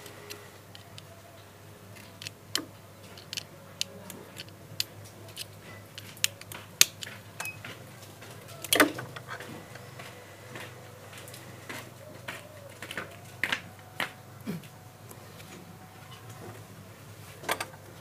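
Irregular sharp clicks and small knocks of a refrigerator compressor's plastic start relay and overload protector being handled at the compressor's terminal pins, over a steady low hum.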